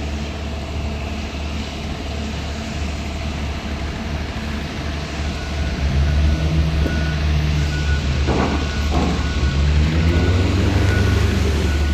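Vehicle engine and road rumble, with a reversing alarm beeping in a steady series of short high beeps from about halfway through.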